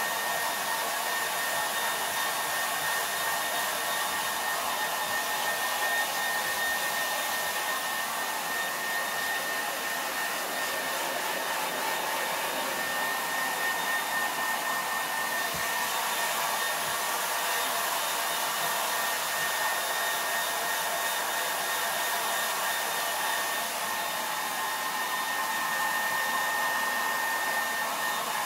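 Dog grooming blow dryer running steadily while drying a dog's head: an even rush of air with a thin, steady whine over it.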